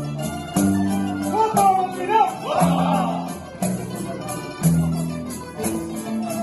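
A rondalla, a Spanish plucked-string ensemble of guitars and lutes, playing strummed chords that change about once a second, with a tambourine shaking along.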